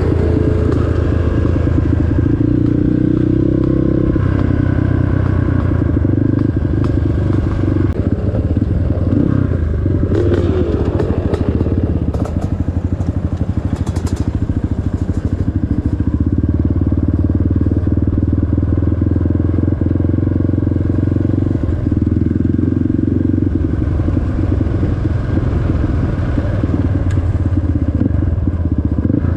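Off-road vehicle engine running steadily at a fairly even speed, heard close up, with a few clatters and knocks about halfway through.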